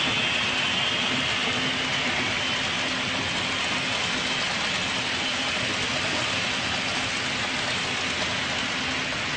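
HO-scale model trains running on the layout: a steady running noise with a faint low hum underneath.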